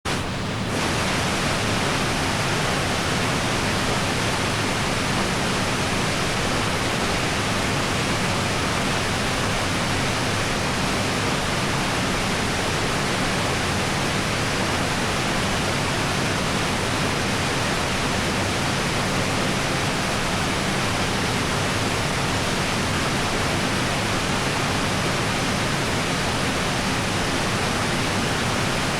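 Small waterfall pouring into its pool: a steady, dense rush of falling water, unchanging throughout.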